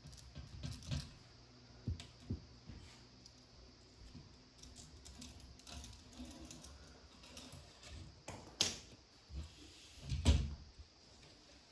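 Scattered light clicks and knocks of hands working with small tools and materials, with two louder knocks about 8.5 and 10 seconds in.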